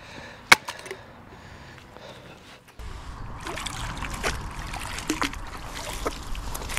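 A single sharp click about half a second in. Then, from about three seconds in, a low rumble with light splashes, drips and small clicks as a neodymium fishing magnet on a rope is hauled out of canal water with a muddy lump of metal clinging to it.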